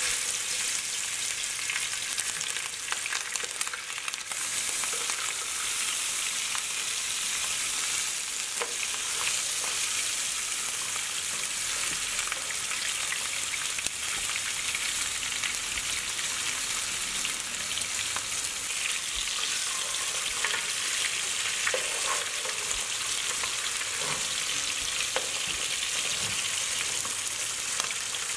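Seasoned fish steaks frying in hot oil in a nonstick pan: a steady sizzle, with small pops and clicks scattered through it.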